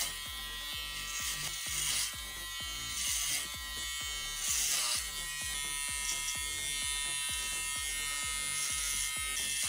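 Electric hair clipper running with a steady buzz while shaving the side of the head. Its sound gets louder and harsher a few times in the first half, as the blades cut through hair.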